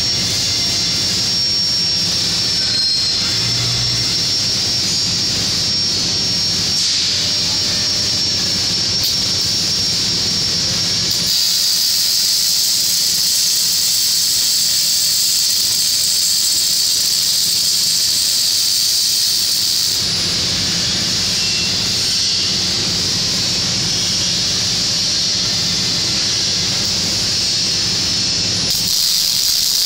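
1997 Panasonic robotic arc welder laying a weld, a steady loud hiss of the welding arc from about eleven seconds in until about twenty, then starting again near the end. Between the welds there is a low machine hum with a thin high steady whine.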